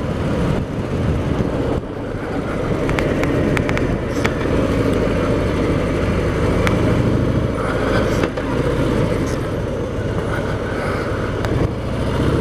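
Harley-Davidson Sport Glide's Milwaukee-Eight 107 V-twin running on the road, heard from on the bike, with a steady rush of engine and road noise; the level dips briefly about two seconds in and again near eight seconds.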